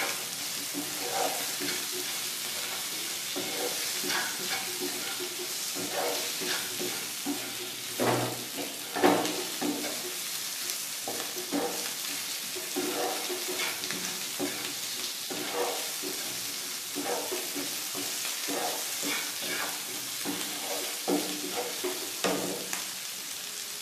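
Cubed boiled potatoes sizzling in hot oil in a nonstick frying pan. They are stirred and tossed with a wooden spatula that scrapes and knocks against the pan every second or so.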